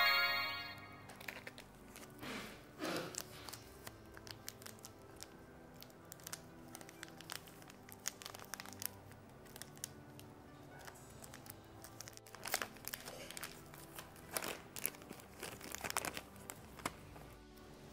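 Plastic wrapper of a wafer snack pack crinkling and tearing as it is pulled open by hand, in scattered sharp crackles with a busier cluster near the end, over quiet background music.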